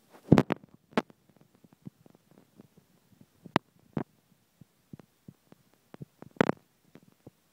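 Handling noise: irregular knocks and clicks as the camera is shifted about, with a loud cluster about half a second in, a knock at about a second, two more around halfway and a loud double knock near the end.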